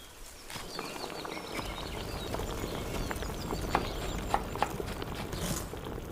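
Outdoor ambience with birds chirping, and a run of light, sharp knocks that come more often toward the end.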